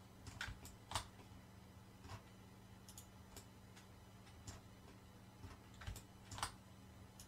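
Faint, scattered clicks of a computer mouse and keyboard, the loudest about a second in and near the end, over a steady low hum.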